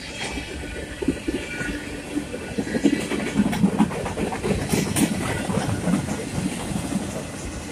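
Freight train cars rolling past close by: a steady low rumble of wheels on rail with irregular clanks and knocks, loudest in the middle.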